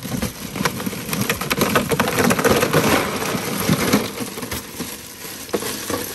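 Ice cubes poured from a plastic bag into an empty plastic ice chest, a dense clatter of cubes hitting the cooler floor and each other. The clatter is heaviest in the middle of the pour and thins toward the end.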